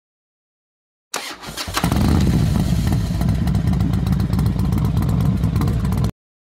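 After about a second of silence, a motorcycle engine starts, catches and runs at a brisk, steady speed, then cuts off abruptly about a second before the end.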